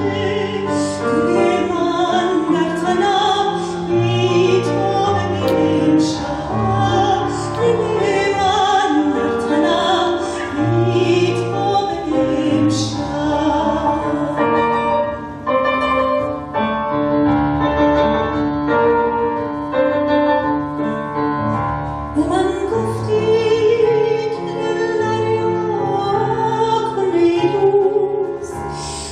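A woman singing with a wide vibrato, accompanied by a grand piano.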